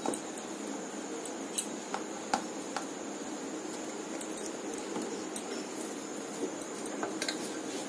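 A few light clicks and taps on a steel plate as cornflour is tipped from its box and fingers begin working it into chhana, over a steady background hiss.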